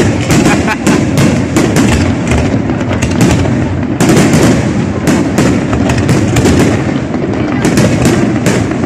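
Loud aerial fireworks display: a dense, unbroken barrage of shell bursts and crackling, with many sharp reports a second.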